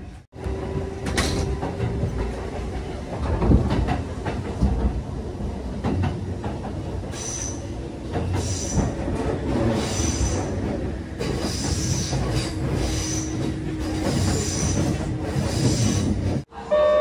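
Kintetsu local train running, heard from inside the carriage: a steady rumble of wheels on rail under a humming tone. From about seven seconds in, a high squeal from the wheels comes and goes again and again.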